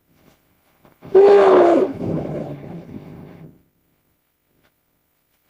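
Bajadasaurus sauropod-dinosaur call sound effect: one loud bellowing call about a second in, its pitch arching slightly up and then down, tailing off over about two seconds.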